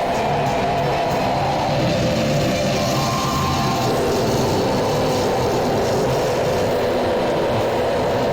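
Harsh industrial noise / power electronics music: a dense, steady wall of distorted noise with droning tones and no clear beat. The drone drops lower about four seconds in.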